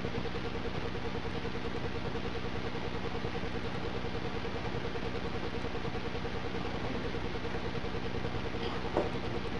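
Electric fan running steadily: a constant motor hum with a rapid pulse, over rushing air. A short knock near the end.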